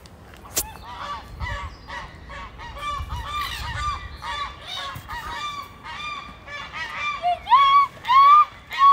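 Canada geese honking over and over, calls overlapping thick and fast, with the loudest honks near the end, as the geese squabble over food. A single sharp click sounds shortly after the start.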